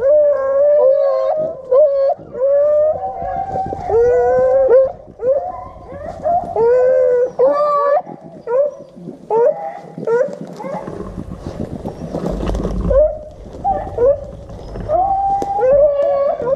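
A pack of beagles baying on a rabbit's trail: many overlapping long, bending howls and yelps following one another almost without a break.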